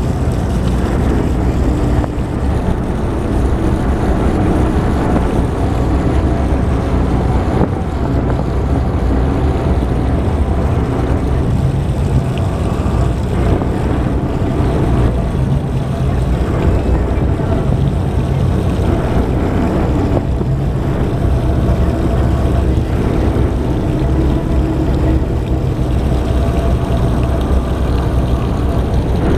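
Passenger ferry's engines running with a steady low drone as the boat cruises slowly into harbour, over a rush of wind and water.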